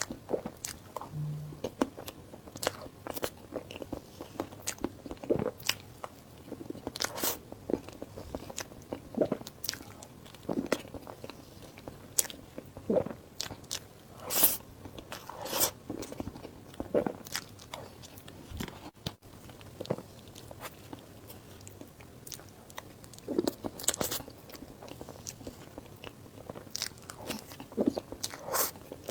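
Close-miked eating: a person biting and chewing food, with many irregular sharp mouth clicks and bites.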